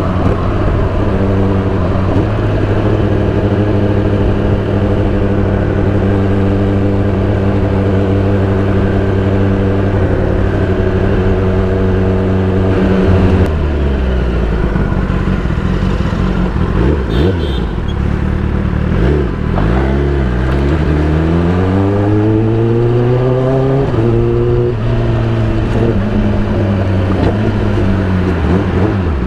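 Inline-four sport motorcycle's engine and wind noise from the rider's seat. It cruises steadily for about thirteen seconds. Then the revs fall as the bike slows, rise again with acceleration around twenty seconds in, and dip and settle lower near the end.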